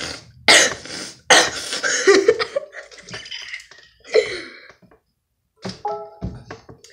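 A boy coughing several times in short, loud bursts, with brief vocal noises between them.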